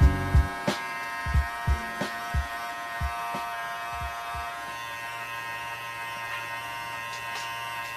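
Andis Cordless Master hair clipper running with a steady buzzing hum. Low beat thumps fade out over the first few seconds.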